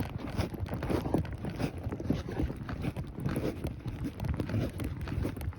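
A horse's hooves striking the ground in a steady run of clip-clop hoofbeats, several strikes a second.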